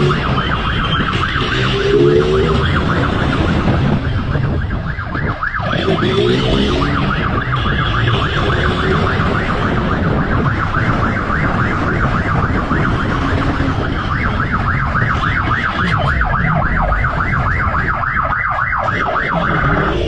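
Siren in a rapid yelp, several sweeps a second without a break, over the low rumble of a motorcycle engine.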